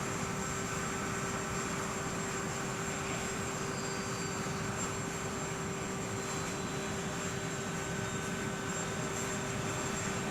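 Aircraft engine running steadily: an even rush of noise with a steady whine held underneath.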